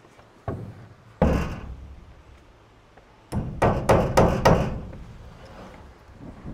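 Knocks on wood: a single knock about half a second in, a louder one a little after a second, then a quick run of about five knocks starting a little over three seconds in.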